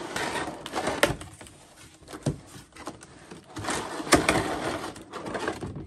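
Cardboard box insert and clear plastic blister tray scraping and rustling as they are slid out of a figure's box, with a few sharp clicks and knocks of the packaging.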